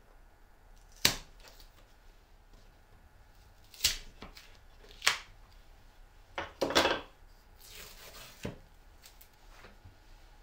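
Plywood pieces handled and set down on a table: about half a dozen separate wooden knocks and clacks, with a short sliding rustle a little before the last knock.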